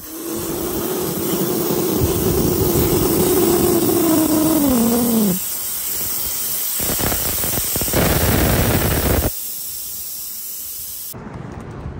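Air hissing out of a tire through the Teraflex Nomad deflator valve on a beadlock wheel, airing the tire down. A whistle rides on the hiss for the first five seconds, falling in pitch before it cuts off, and the hiss keeps on, changing level a few times, until it stops about a second before the end.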